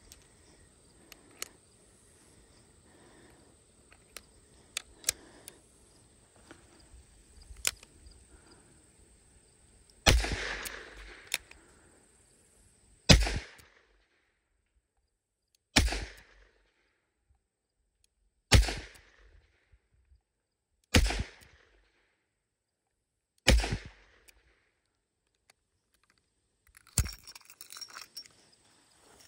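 Six shots from a stainless Colt Anaconda .44 Magnum revolver, fired one at a time about two and a half to three seconds apart, each a sharp loud bang with a short tail. Before the shooting come light clicks of cartridges being loaded and the cylinder closing; near the end comes a quick metallic clatter as the cylinder is swung open and the spent cases are ejected.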